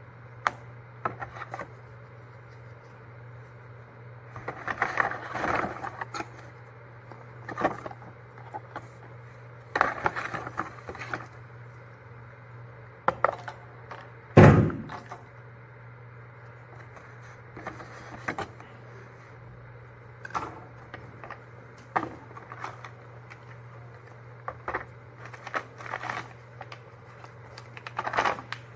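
Paper gift bags rustling as small items are taken out and set down on a hard bench top, with scattered taps and clicks and one louder knock about halfway through. A steady low hum runs underneath.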